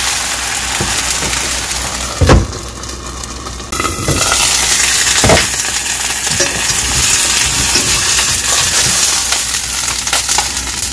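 A flour pancake sizzling in hot oil in a stainless-steel frying pan. A spatula knocks against the pan about two seconds in, the sizzle drops for a moment and comes back, and there is another knock about five seconds in.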